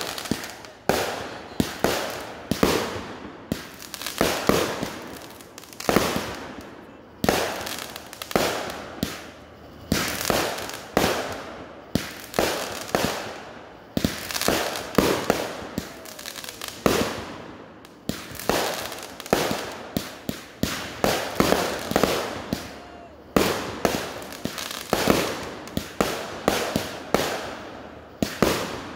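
Aerial fireworks firing in quick, uneven succession: a string of sharp bangs, about one or two a second, each trailing off in an echo.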